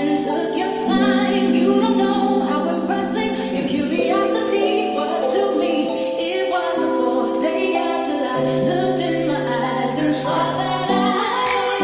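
Background music: voices singing sustained chords in harmony, the chord changing every few seconds.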